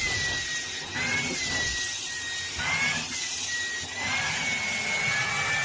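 Small electric motor running with a steady hiss and a high whine that wavers gently up and down in pitch, as from a household appliance.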